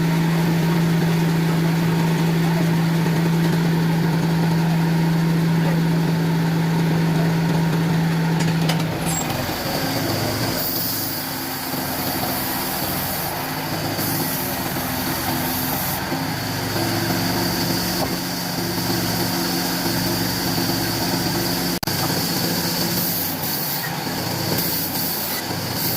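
Wood-cutting machine's motor running steadily with a strong humming note. About nine seconds in the note changes and a high whine joins it.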